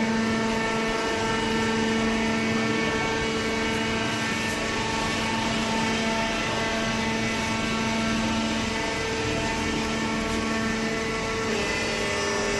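Horizontal hydraulic cardboard baler running, its hydraulic pump and motor giving a steady hum.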